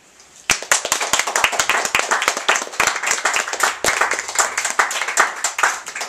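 Audience applauding: many hands clapping, starting about half a second in and thinning out near the end.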